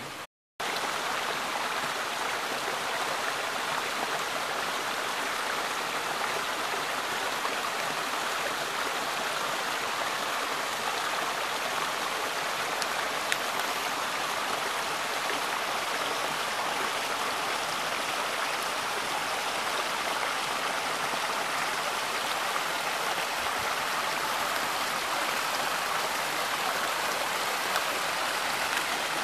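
Small rain-swollen woodland creek rushing over rock-ledge cascades: a steady, even rush of falling and running water.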